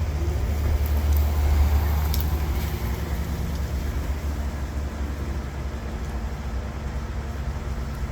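Steady low rumble of wind and road noise while riding a Circooter Raptor Pro dual-motor electric scooter at speed in standard mode. It is loudest in the first two seconds and eases slightly after.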